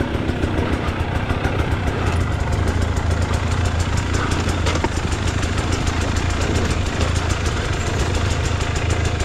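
KTM 300 TBI single-cylinder two-stroke dirt-bike engine running steadily at low revs, near idle, with no revving, as the bike rolls down a steep, rutted slope.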